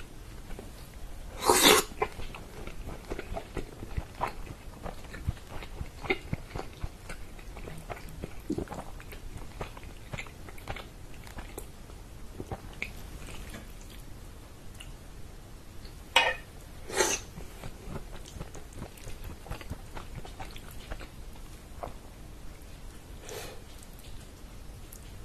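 Close-miked chewing and wet mouth sounds of eating tender, fall-off-the-bone chicken in tomato sauce, with many small clicks and smacks. A few louder wet smacks stand out, one about a second and a half in and two close together around sixteen seconds.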